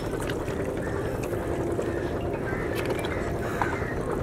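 A motor runs with a steady low rumble, with a few faint wet clicks from hands working in soft mud.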